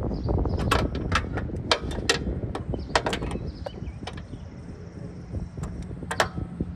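Bolt on a lawnmower's belt cover being tightened with a hand wrench: irregular sharp metal clicks and clinks, over a steady low rumble.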